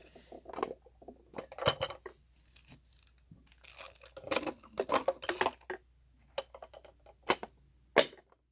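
Clicks, knocks and rattles of a hard plastic toy RV being handled as a toy motorcycle is stowed back inside it, with two sharp clicks near the end.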